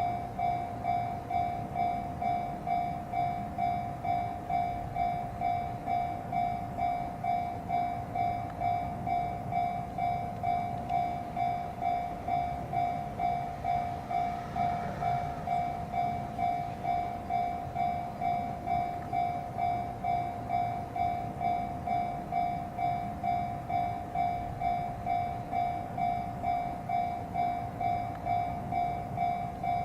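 Japanese level-crossing alarm ringing: an electronic bell repeating one high ding in an even rhythm, roughly three every two seconds, without let-up.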